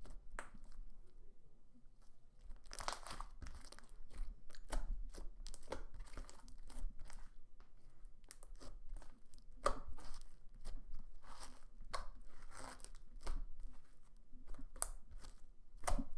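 Thick, glossy slime being stretched, folded and squeezed in the hands, giving a run of irregular clicks, pops and squelches.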